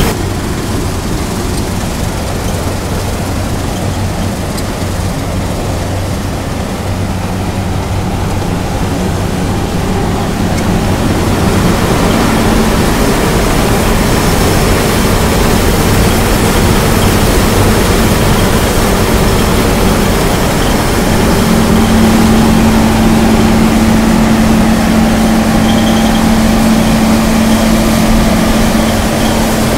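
New Holland tracked combine harvester with a MacDon header harvesting beans at close range: steady engine and machinery drone with a low hum, growing a little louder from about ten seconds in and firmer again past the twenty-second mark.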